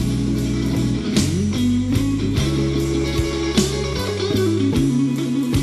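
Slow electric blues band music: an electric guitar plays a fill with bent, gliding notes over bass guitar and drums, with no vocals.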